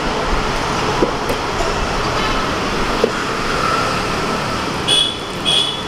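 Steady street traffic noise from passing vehicles, with two short high-pitched beeps a little before the end.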